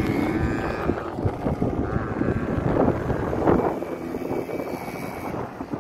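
Quad bike engines running and revving as the bikes ride past, their pitch rising briefly at the start, mixed with wind buffeting the microphone.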